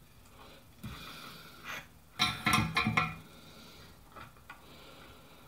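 Small tools and wire being handled on a workbench, with a brief, loud, ringing rattle a little over two seconds in.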